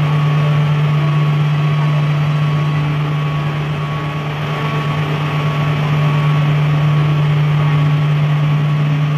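A steady low machine drone, like a motor running without let-up, with a faint high whine held above it.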